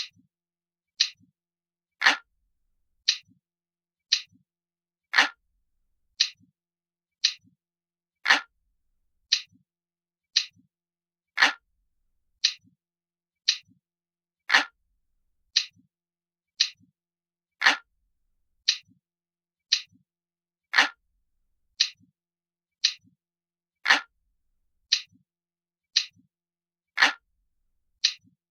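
Analog clock ticking about once a second in an even loop, every third tick heavier and lower than the two lighter, sharper ticks between.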